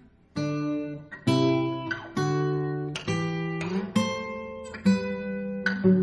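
Acoustic guitar music: chords strummed about once a second, each left ringing.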